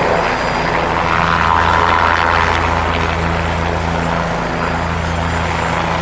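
An air-ambulance helicopter hovering low: steady rotor and turbine engine noise over a low, even hum.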